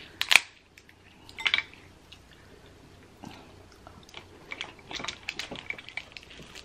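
Dungeness crab leg shells being cracked and pulled apart by hand while the meat is eaten, with chewing. There are sharp cracks about a third of a second in and again at about one and a half seconds, then a run of small snaps and clicks near the end.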